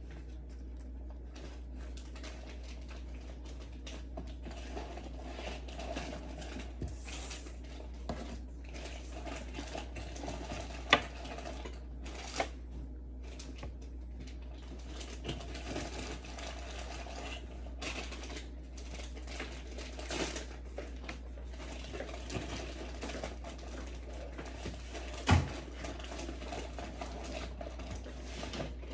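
Scattered small plastic clicks, taps and rustles of insulin syringes, caps and vials being handled, with two sharper clicks, one about eleven seconds in and one near the end, over a steady low hum.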